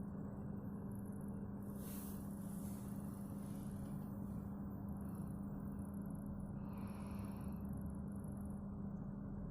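A person sleeping, breathing quietly between snores, with two faint breaths about two and seven seconds in over a steady low hum.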